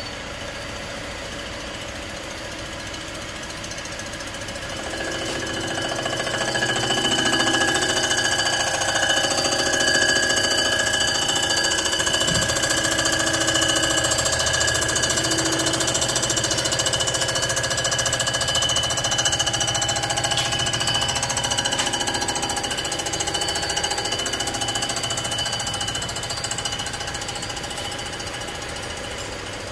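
Comec ACF200 head-surfacing machine's cutter taking a light 0.002-inch skim cut across a cast-iron IHC C60 cylinder head, running with a steady mechanical whine. About five seconds in, the cut grows louder with a ringing, chattering note as the cutter bites the head's face. It eases off near the end.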